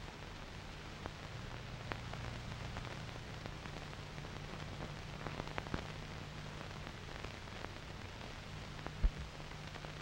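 Hiss and scattered crackles from an old 16mm film's optical soundtrack, over a low steady hum, with one low thump about nine seconds in.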